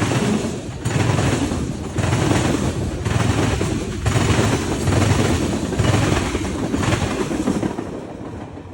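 A train rolling past, its wheels clacking over the rail joints in a regular beat about once a second over a steady rumble, fading near the end as it moves away.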